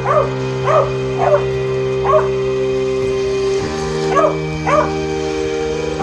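A beagle barking in short, separate barks, about six of them with a pause in the middle, over background music with held chords.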